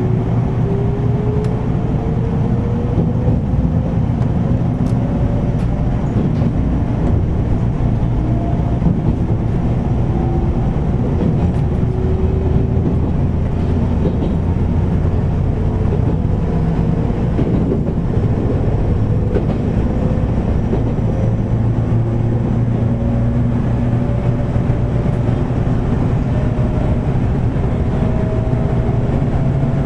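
413-series electric train running, heard from the cab of its motor car: a steady rumble with a motor and gear whine that rises slowly in pitch as the train gathers speed. The air conditioning adds a loud hum.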